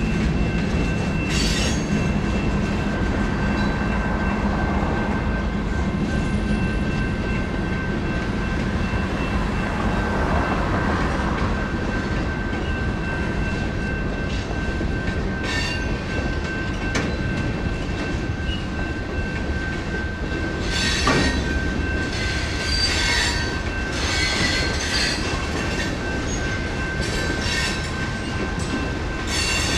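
Freight cars of a Union Pacific train rolling through a grade crossing: steady rumble and clatter of wheels over the rails, with bursts of high squealing and clanking several times, most after the middle. Under it the crossing's GS Type 2 electronic bells ring without a break.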